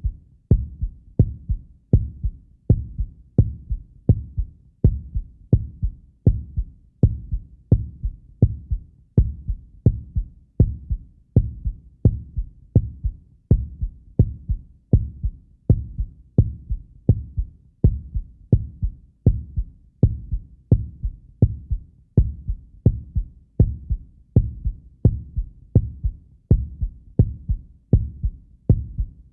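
Heartbeat sound effect: a steady, even rhythm of low, thudding beats.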